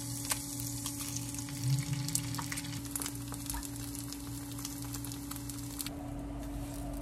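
Sliced green onions frying in oil in a pan, a steady sizzle with many small pops. A steady low hum runs underneath, and the sizzling stops about six seconds in.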